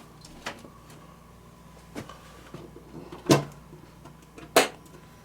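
Sharp clicks from handling a GFCI outlet and its plug-in tester, two loud ones about a second and a half apart in the second half, with fainter taps before them.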